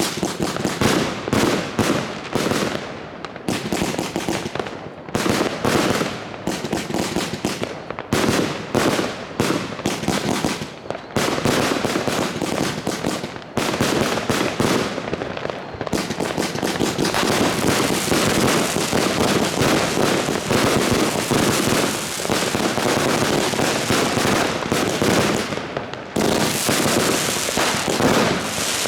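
New Year's Eve fireworks: a rapid string of sharp bangs from firecrackers and aerial shells. About halfway through, it thickens into a continuous barrage of bangs and crackling, which breaks off briefly near the end.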